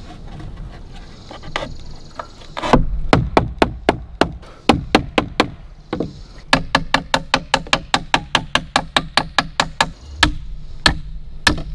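Hammer driving nails into wooden wall framing: a quiet start, then a run of quick blows a few seconds in, a short pause, a longer fast run of about six strikes a second, and a few slower blows near the end.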